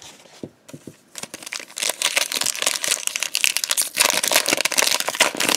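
Foil wrapper of a Pokémon booster pack crinkling as it is handled and torn open, a dense run of crackles that grows loud about two seconds in.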